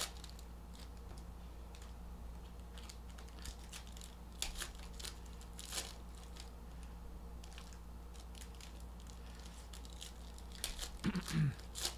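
Plastic and paper packaging being handled and torn open: short, scattered crinkles and rips every second or so, over a steady low electrical hum.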